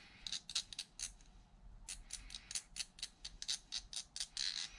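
Screwdriver tip ticking against the teeth of the brass main gear of an Abu Garcia 6500 C3 baitcasting reel as grease is spread around them: a fast, irregular string of light metal clicks.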